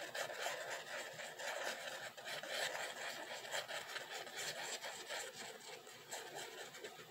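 The nozzle of a squeeze glue bottle rubbing and scraping along the edge of embossed paper as glue is laid on: a quiet, continuous scratchy rustle with small ticks.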